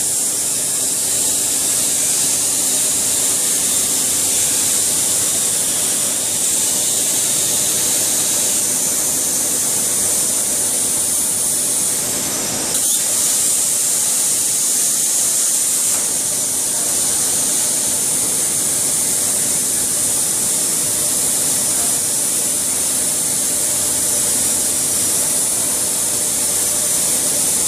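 CNC plasma cutter's torch cutting: a steady loud hiss with a steady hum underneath. The hiss briefly drops and comes back about halfway through.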